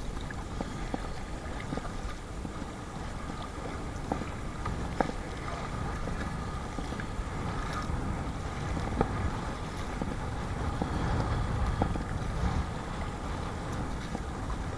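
Strong wind buffeting the microphone in a steady low rumble, over water splashing and slapping against a Perception Sound 10.5 sit-on-top kayak in choppy, whitecapped water. There are a few sharp splashes or knocks, and the gusting swells a little near the end.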